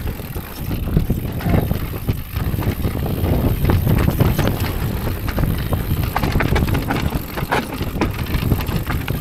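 Electric mountain bike rolling down a loose rocky trail: tyres crunching over stones and the bike rattling with many small knocks and clicks over a constant low rumble.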